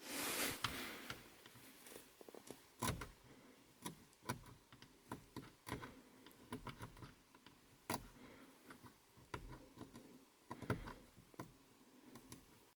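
Small screwdriver scraping and picking the peeling coating off Saab 9-5 dashboard buttons: faint, irregular light clicks and scrapes of metal on plastic, a few sharper clicks among them.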